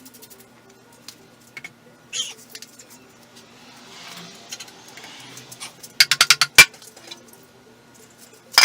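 Sharp metallic clinks and clicks of hand tools and metal parts being handled, with a quick run of loud clinks about six seconds in and another loud clink at the end.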